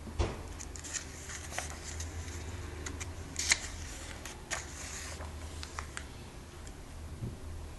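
Pages of a comic book being handled and turned by hand: paper rustling and crinkling with scattered taps, the sharpest snap about three and a half seconds in.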